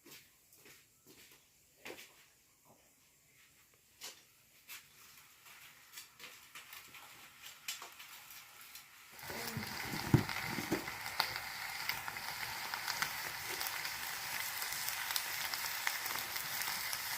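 A few light knocks and clicks, then about nine seconds in a steady sizzle starts suddenly and keeps on, full of small crackles, as of food going into a hot oiled pan.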